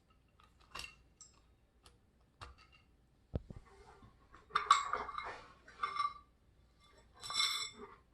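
Small metal and glass parts of a ceiling fan light kit clinking and rattling as they are handled. There are scattered light clicks, a sharp knock about three seconds in, and louder rattling clusters from about four and a half seconds on, the last with a brief glassy ring.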